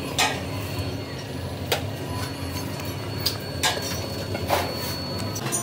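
Workshop machinery running with a steady low hum and a thin high whine, and sharp metal clanks about five times, the metal-on-metal knocks of rim-making work.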